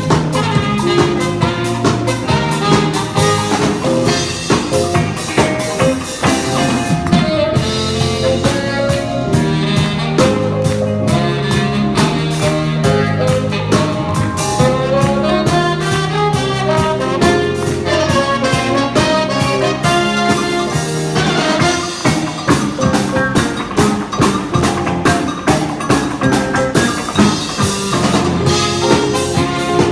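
Band music with brass horns over a drum kit keeping a steady, driving beat.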